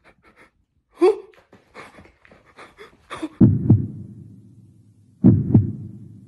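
Heartbeat sound effect: two deep double thumps, lub-dub, about two seconds apart, each with a slowly fading low tail. Before them come a brief vocal sound about a second in and a few faint ticks.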